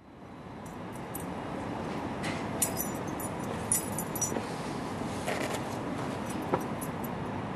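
Small ring of metal keys jingling in a hand in short bursts, several times, over a steady hum of city traffic that fades in at the start.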